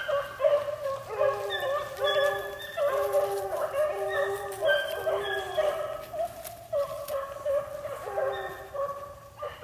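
A pack of beagles in full cry on a rabbit, several hounds baying at once in overlapping voices without a break; one young hound has a high, squeaky mouth.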